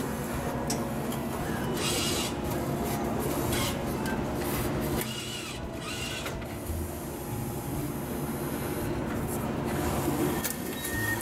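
Cup-type hot drink vending machine running as it brews a cup of hot milk tea: a steady mechanical hum with short hissing, rasping bursts of dispensing and mixing, three times.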